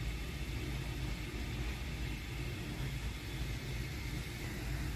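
A steady low rumble with hiss, like a machine or traffic running in the background.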